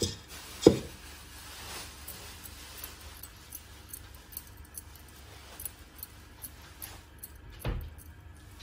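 Gold bangles clinking lightly in scattered small clicks as hands work dough and rub it off over a stainless steel bowl. A sharp knock comes just under a second in and a duller thump near the end.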